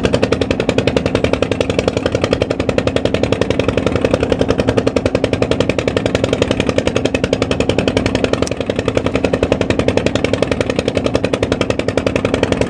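A small engine running steadily, with a rapid, even putter and a steady low hum.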